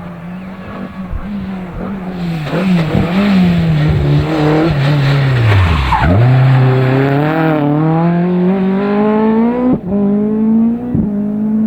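Ford Escort rally car engine revving hard, its pitch dipping and climbing with lifts and gear changes: a sharp drop about six seconds in, then a steady climb to a gear change near ten seconds. Tyres skid through the middle of it.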